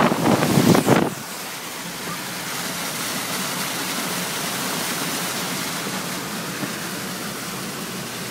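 Car driving through floodwater on a road: loud, irregular splashing of water thrown up by the wheels for about the first second. Then a steady rush of tyres and water with a low engine hum beneath, heard from inside the cabin.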